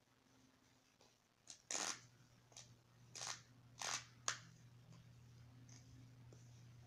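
Disposable diaper crinkling and rustling as it is handled, in a handful of short, scratchy bursts between about one and a half and four and a half seconds in.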